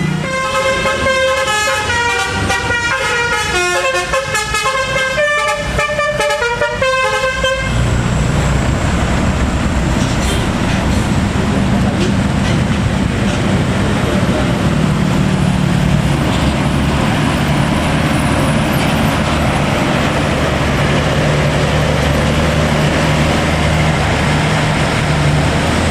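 A bus telolet musical air horn plays a quick melody of stepped tones for about eight seconds, then stops abruptly. After that a heavy vehicle's diesel engine rumbles steadily close by.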